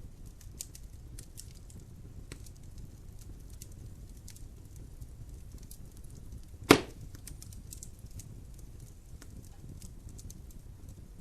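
Fire burning in a fireplace, crackling with scattered small pops over a low steady rumble, and one loud pop about two-thirds of the way through.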